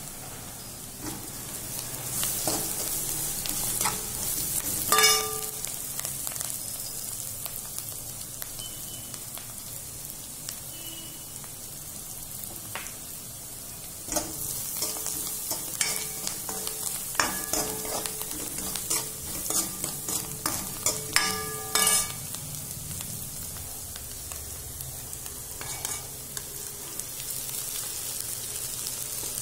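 Onions and spices sizzling in hot oil in a kadhai while a metal spoon stirs and scrapes them. Several ringing clinks of the spoon on the pan are heard, loudest about five seconds in and again around twenty-one seconds.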